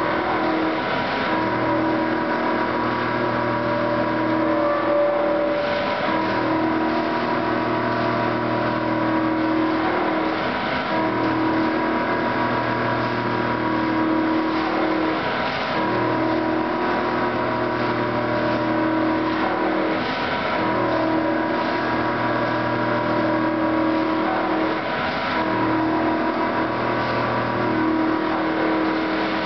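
Enclosed CNC lathe turning a nut blank: a steady machine hum that dips briefly and comes back about every five seconds, over a constant hiss of coolant spray.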